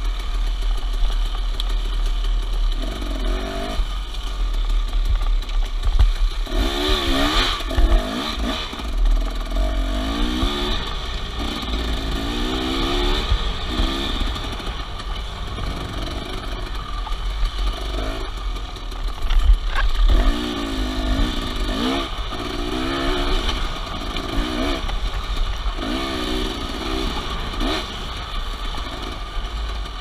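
Dirt bike engine under way on a rough trail, its pitch rising and falling again and again as the throttle is opened and closed, with clatter from the bike over the bumps.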